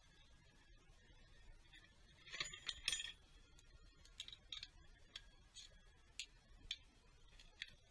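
Metal hand tool clicking and clinking against the top of a diesel engine: a quick cluster of clinks about two and a half seconds in, then single sharp ticks about every half second.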